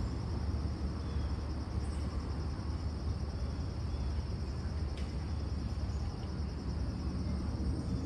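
Insects trilling steadily in a high, even band over a constant low rumble, with a faint click about five seconds in.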